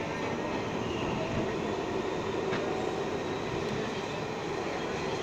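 Steady rumble of an R62A subway car running on the rails, heard from inside the car, with one faint click about halfway through.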